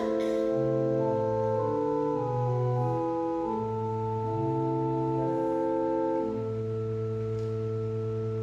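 Organ playing slow, held chords that change every second or so, closing on a long sustained chord.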